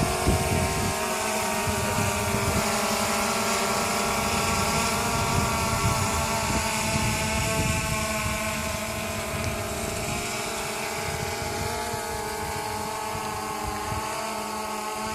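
DJI Phantom 2 quadcopter's four electric motors and propellers whining steadily in flight, several steady tones over a hiss. There is a low rumble in the first second, and the whine grows a little quieter in the second half.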